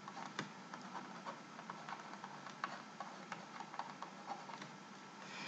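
Faint, irregular light ticks and taps of a stylus on a writing surface as handwriting is put down stroke by stroke.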